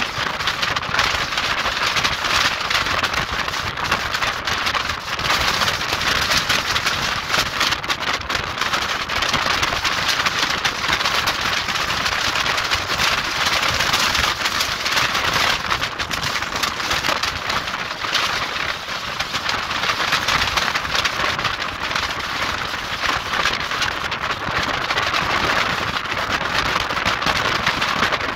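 Gale-force storm wind: a loud, continuous rushing hiss that swells and eases with the gusts.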